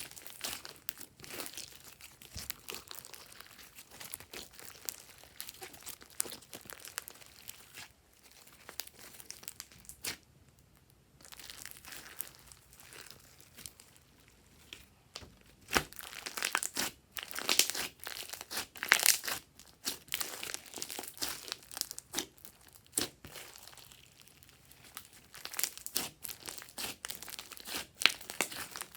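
Hands squishing, poking and stretching glossy slime: dense wet clicks and crackles. They nearly stop for a moment about ten seconds in and are busiest past the middle and again near the end.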